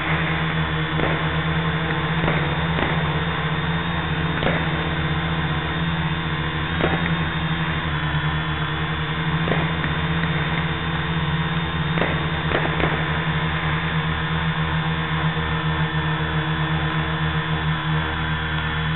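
Quadcopter's electric motors and propellers humming steadily while hovering, with a few faint pops from fireworks bursting now and then.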